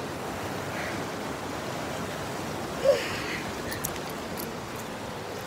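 Steady rush of a mountain creek running over rocks, with one short, louder sound about three seconds in.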